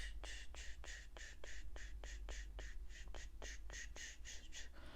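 Eyebrow razor shaving strokes: short, rapid scrapes, about four a second, in a steady rhythm.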